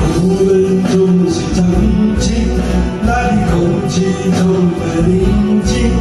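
Karaoke: a man singing into a microphone over a loud pop backing track.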